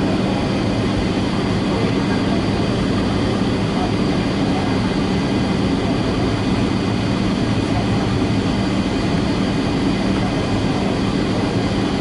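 Steady cabin noise of a Boeing 757-200 in flight: engine drone and rushing air, with a low hum and a faint steady high whine from the engines.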